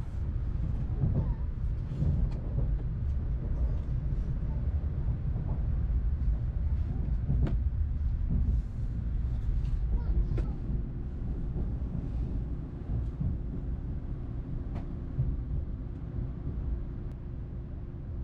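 Low steady rumble of an N700S Shinkansen heard inside the passenger cabin, with a few sharp clicks as a seat's fold-out tray table is handled. About halfway through a steady hum sets in and the rumble eases a little.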